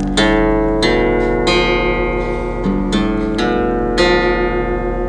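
Background music: an acoustic guitar playing plucked notes in an unhurried melody.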